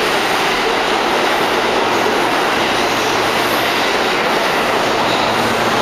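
New York City subway train in motion, heard from inside the car as it pulls out of a station. The noise of steel wheels on the rails and the car's motors runs steadily.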